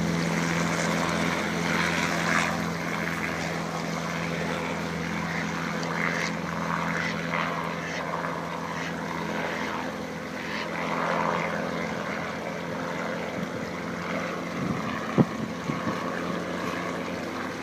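Robinson R22 Beta II helicopter's four-cylinder piston engine and rotor heard at a distance, a steady hum that slowly fades. A single sharp knock comes about fifteen seconds in.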